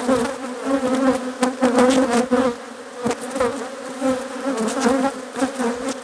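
Honeybees buzzing around an opened hive of a crowded colony. A steady drone is overlaid by individual bees whining past close by, rising and falling in pitch, with a few light clicks.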